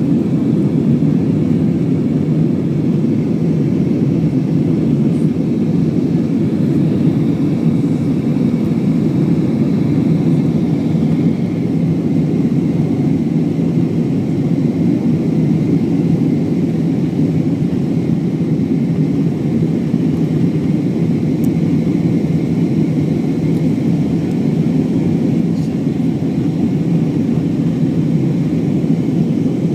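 Airbus A320 jet engines and airflow heard from inside the passenger cabin as a steady, loud drone.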